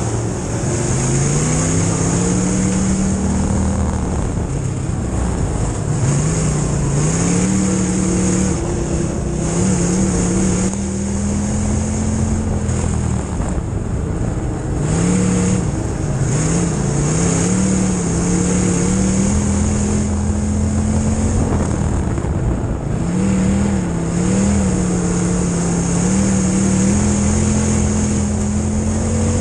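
Midwest Modified dirt-track race car's V8 engine heard from inside the car at racing speed, the revs climbing and falling off every few seconds as it goes round the track, over a steady high hiss of wind and road noise.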